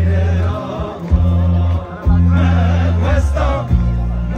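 Music playing loudly, with a heavy bass line that changes note about once a second under a singing voice.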